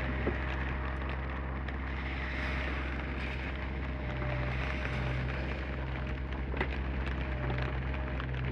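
Komatsu PC30 mini excavator's diesel engine running steadily, with a faint steady whine above it and scattered light ticks.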